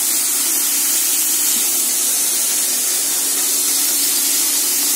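Steady hiss from the gas stove with a kadhai heating on it, with a faint steady hum beneath.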